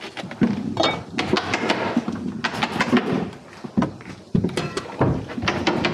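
A run of irregular knocks and clunks on wood: footsteps and the handling of lumber and tools on an OSB subfloor during stair framing.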